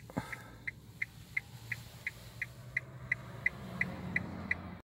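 Car turn-signal indicator ticking evenly, about three ticks a second, over the low hum of the electric car driving, heard inside the cabin. The sound cuts off abruptly near the end.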